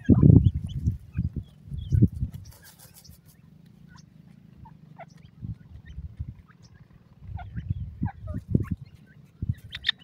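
Grey francolins dust-bathing in dry soil: short bursts of wing-fluttering and scuffling in the dust. They come in clusters in the first couple of seconds and again through the second half, with a quieter lull between, and faint short chirps over the top.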